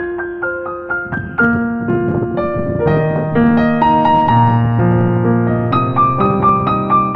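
Background piano music: struck notes and chords sounding together, the bass filling in from about three seconds in.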